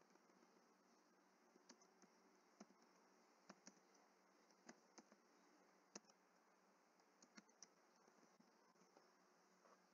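Faint computer keyboard typing: about a dozen scattered key clicks at an uneven pace over a near-silent background hiss.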